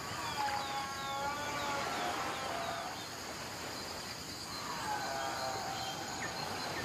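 Dawn nature ambience: a steady high-pitched chorus of insects with scattered short bird chirps. A soft, sustained pitched tone swells in twice.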